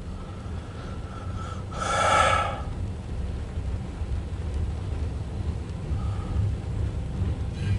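Loaded coal hopper cars rolling past with a steady low rumble, heard from inside a car. A brief louder sound cuts in about two seconds in.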